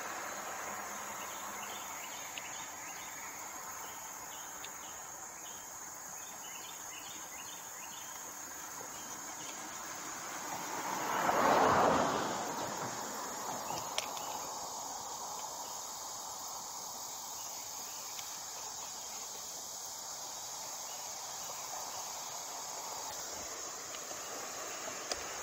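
Outdoor ambience of insects chirping steadily, with a run of quick, evenly spaced chirps a couple of seconds in. About halfway through, a rush of noise swells up and fades away over a second or two.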